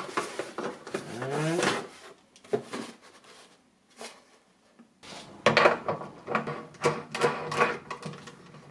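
Handling noises: a cardboard box rustling as a four-jaw lathe chuck is lifted out of it. Then, from about five seconds in, metal clicks and scrapes as the chuck is fitted by hand onto the lathe spindle.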